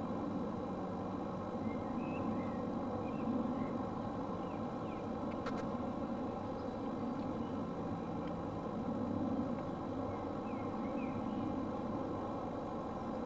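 Steam locomotive working a train in the distance, a steady low rumble that swells gently, with birds chirping now and then and a single sharp click about five and a half seconds in.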